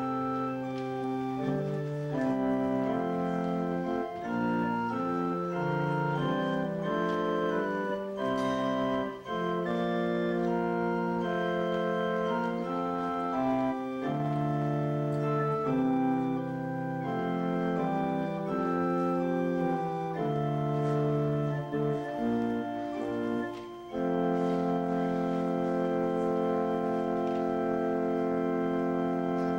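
Church organ playing offertory music while the offering is taken up: slow sustained chords that change every second or so, ending on a long held chord.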